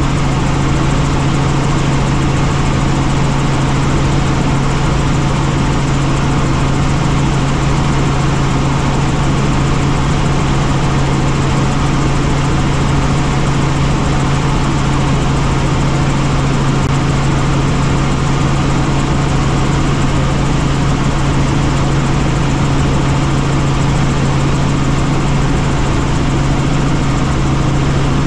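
Helicopter in steady flight: a loud, even drone of engine and rotor with a strong constant low hum.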